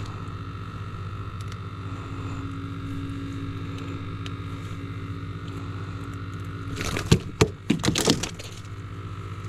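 A boat motor hums steadily at an even pitch. About seven seconds in, a quick cluster of sharp knocks and clatter sounds.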